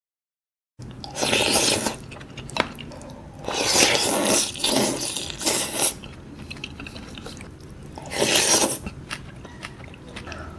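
Jjajangmyeon noodles in black bean sauce slurped and chewed close to the microphone: four or five loud slurps of about a second each, with wet chewing between. A brief silence comes before the first slurp.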